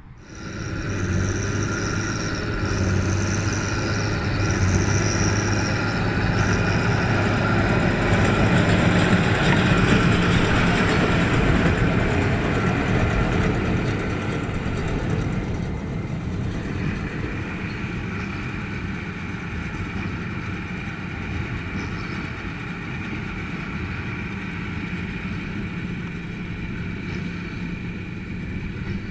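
Tractor pulling a straw baler: a diesel engine running steadily with its machinery, getting louder over the first ten seconds, then easing off a little.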